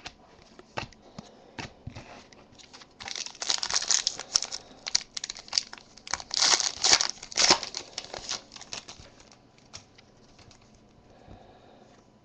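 A foil trading-card pack being torn open and its wrapper crinkled, loudest from about three to eight and a half seconds in, with scattered light clicks before and after.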